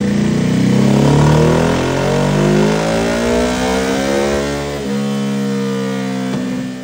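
Ducati Hypermotard 950 SP's 937 cc L-twin, breathing through a titanium VanDemon full exhaust system, running under load on a dyno. Its pitch climbs steadily for about five seconds, then holds at a high note.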